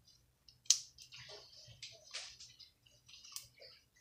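Slime being stretched and squeezed between the hands, making irregular wet clicks and small pops, with one sharp loud pop a little under a second in and another near the end.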